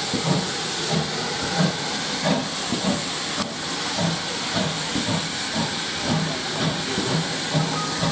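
GWR 5700 Class pannier tank steam locomotive pulling away slowly with its cylinder drain cocks open, giving a steady loud hiss of steam. Soft low beats come roughly every two-thirds of a second under the hiss.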